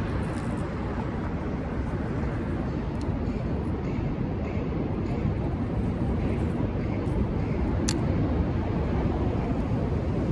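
Steady low outdoor rumble, growing slightly louder, with one sharp click about eight seconds in.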